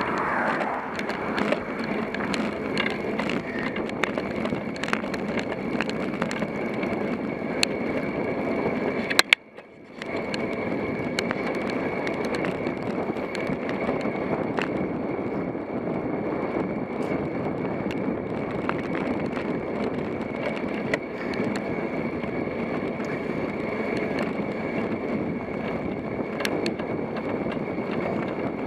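Bicycle being ridden on asphalt, heard from a camera mounted on the bike: a steady rolling hiss with scattered light clicks. The sound cuts out for about half a second around nine seconds in.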